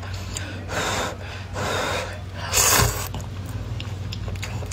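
A person slurping noodles, three separate slurps a little under a second apart, the last one the loudest.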